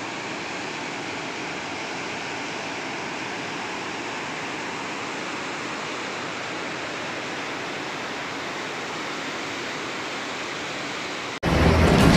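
Floodwater rushing through a breach in a river levee: a steady, even rushing noise of churning water. Near the end it cuts off suddenly and a much louder recording takes over.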